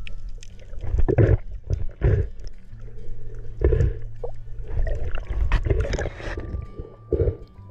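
Water splashing and gurgling in a series of irregular bursts.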